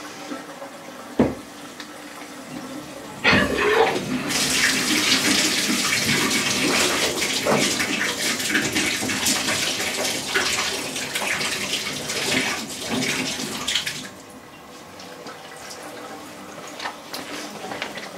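Water running hard through plumbing just turned back on for a newly reset toilet. There is a knock about a second in and a clunk just past three seconds, then about ten seconds of loud, even rushing that drops back to a quieter steady hiss of water still running.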